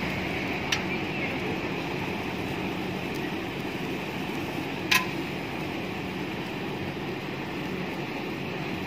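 Electric fan blowing onto a charcoal brazier: a steady rush of air over the fanned, burning coals, with two sharp cracks of charcoal popping, a small one near the start and a louder one about five seconds in.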